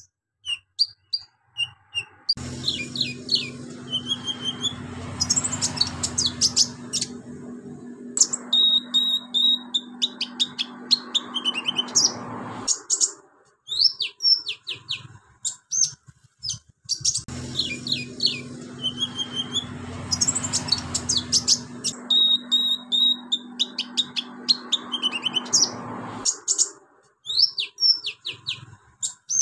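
A male van Hasselt's sunbird (kolibri ninja, 'konin') singing a fast, high, chattering song of chirps, trills and short whistles, full of mimicked calls of other birds and insects. For two long stretches a steady low hum runs underneath.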